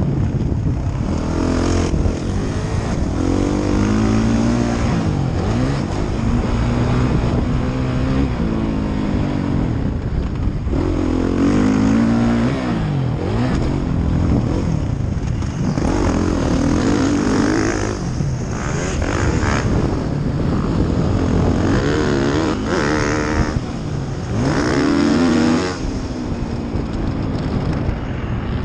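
2016 Suzuki RM-Z450's four-stroke single-cylinder engine being ridden hard, revving up and dropping back again and again through the gears, heard close from the rider's helmet.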